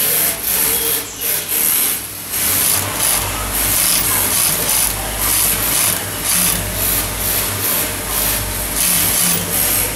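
High-head (post-bed) industrial sewing machine stitching a wig cap in short start-stop runs, about one or two a second, with a steady low motor hum joining about three seconds in.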